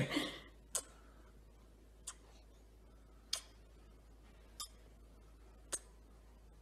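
Quiet, sharp ticks at an even pace, about one every second and a quarter, five in all.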